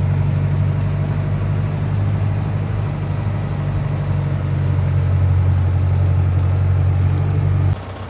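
Motorhome driving slowly on a dirt road, heard from inside the cabin: a steady low engine and road drone that cuts off abruptly near the end.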